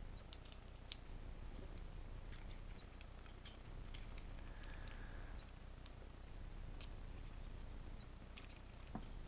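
Faint, scattered clicks and taps of a small flat-blade screwdriver working at a small plastic fan-motor housing held in the hands.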